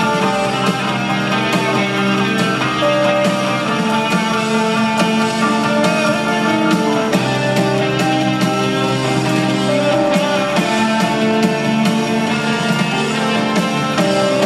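Live rock band playing an instrumental stretch with no singing: an electric guitar strummed over a bass line and a steady beat, recorded from the audience in a large arena.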